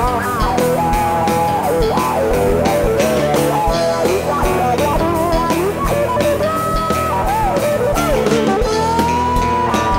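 Live rock band playing an instrumental break: an electric guitar plays a lead line with bent, sliding notes over a steady drum beat and bass.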